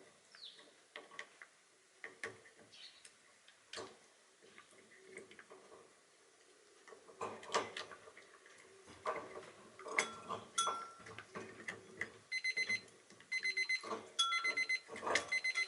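A dog gnawing a horse hoof, its teeth making irregular sharp clicks and knocks that grow louder and busier partway through. From about twelve seconds in, an electronic alarm beeps in quick repeated bursts over the chewing.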